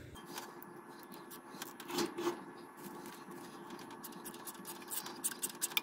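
Faint scattered clicks and scrapes of hands working a hose clamp onto the bypass hose among braided spark plug wires, the clicks coming thicker near the end.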